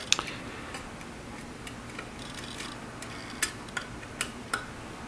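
Light, irregular clicks of wire connectors being handled and fitted onto the thermal sensor of a microwave oven's magnetron. The clicks come more often near the end.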